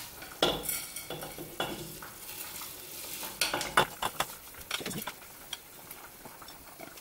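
Dry bulgur poured from a glass bowl into a pot of boiling tomato broth, the grains pattering into the bubbling liquid. Irregular scrapes and knocks come from the bowl and a silicone spatula, the sharpest cluster about three and a half seconds in.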